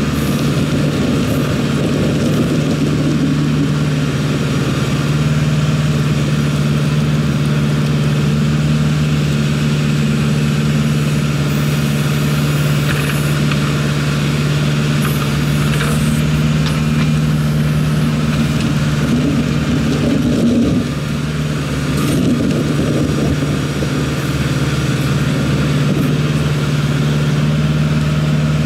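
Kubota L48 backhoe's diesel engine running steadily, with a brief dip in level and pitch about twenty seconds in.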